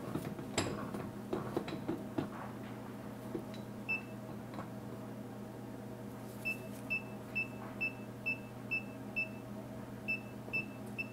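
Digital readout on a milling machine beeping in short, high beeps about twice a second, the signal that the table is nearing the zero coordinate for the next hole; a single beep comes about four seconds in and the steady series starts about halfway through. Light clicks in the first few seconds and a low steady hum lie underneath.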